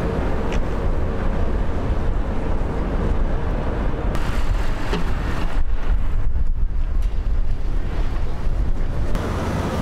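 Steady rumble of wind buffeting the microphone in a snowstorm, changing abruptly twice as the footage cuts.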